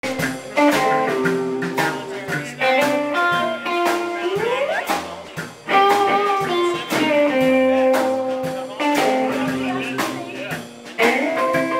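Live blues band playing: electric guitar leading over a drum kit that keeps a steady beat, about one and a half hits a second. About four seconds in, one note slides upward.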